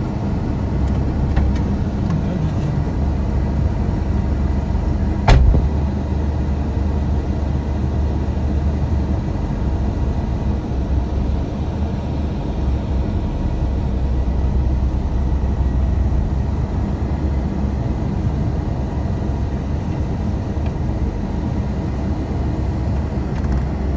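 A motor vehicle's engine running with a steady low rumble, with one sharp click about five seconds in.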